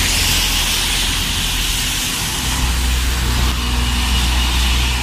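Red double-decker bus passing close on a wet road: its engine rumble strengthens from about halfway through, over a steady hiss of tyres on the wet tarmac.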